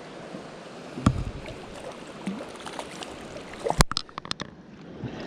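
Creek water running steadily, with a dull knock about a second in and a sharp click followed by a few quicker clicks near the end.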